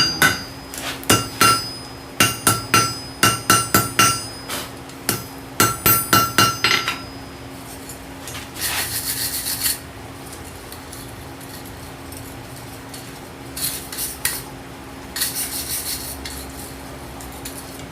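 Blacksmith's hammer striking hot steel on an anvil, about twenty quick blows in the first seven seconds, each with a short metallic ring. Then quieter scraping sounds over a steady low hum.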